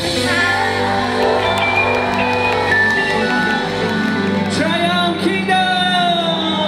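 Live pop band and singer playing the final bars of a song. The bass drops out about four seconds in and long held notes ring on, with a few shouts from the audience.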